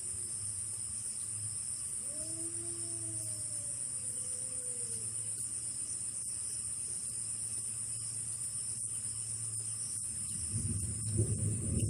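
A drawn-out wailing cry, rising and then falling in pitch, about two seconds in, over the steady high chirring of night insects and a low hum. A louder low rumbling noise comes in near the end.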